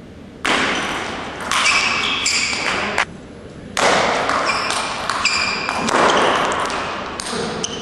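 Table tennis rally: repeated sharp clicks of the ball off the bats and table, with shoes squeaking on the court floor, echoing in a large hall; it pauses briefly just after 3 seconds in.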